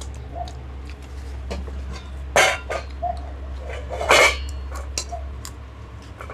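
Close-miked eating sounds: lip smacks and small mouth clicks, with two loud short bursts of mouth noise about two and a half and four seconds in.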